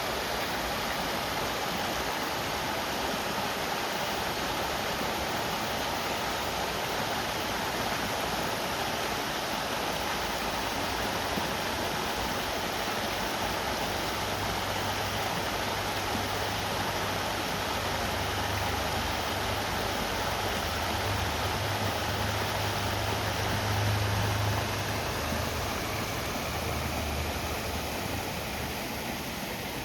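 River Tolka flowing: a steady rush of moving water. A low rumble swells in about halfway through, peaks near the end and fades away.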